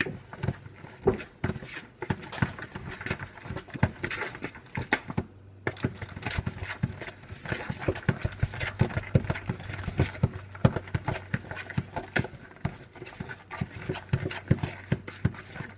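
A spoon stirring a thick mix of chocolate chips, peanut butter, butter, vanilla and powdered sugar in a bowl: irregular scraping and clicking against the bowl, several knocks a second, over a low steady hum.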